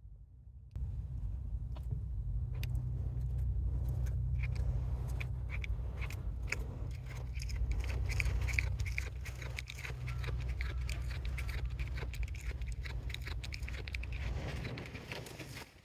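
A cat chewing and tearing blades of cat grass: a quick, irregular run of crisp crunching clicks over a steady low rumble, starting about a second in.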